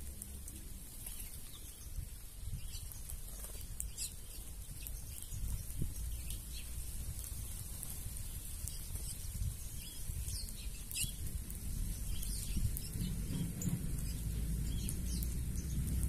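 Small birds chirping: many short, falling chirps scattered throughout, from a flock feeding on the ground, over a steady high hiss and a low rumble that grows louder near the end.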